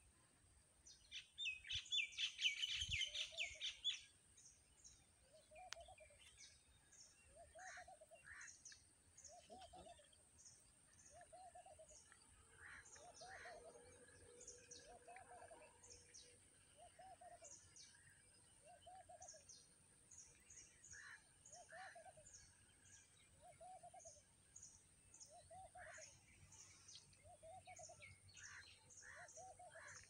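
Birds calling in the open: a rapid chattering call about a second in, the loudest sound, then a low note repeated about once a second, with scattered short high chirps over it.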